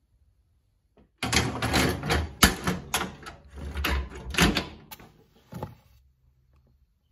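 Metal clanking and knocking as a wood stove's door is handled, a quick irregular run of strikes lasting about four seconds and ending in one last knock.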